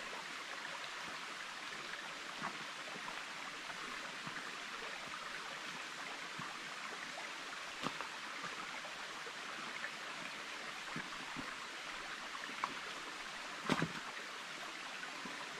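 Shallow rocky creek flowing steadily over stones. A few sharp knocks of footsteps on rocks stand out, the loudest near the end.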